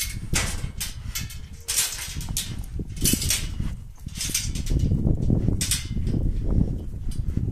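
Wind rumbling heavily on the microphone, with several short scuffing, crunching noises of steps on dry dirt.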